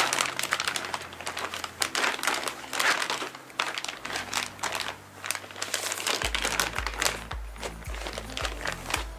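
Plastic vacuum-sealer bag crinkling and rustling as it is opened and a raw steak is slid into it, over background music whose bass beat, about two a second, comes in about two-thirds of the way through.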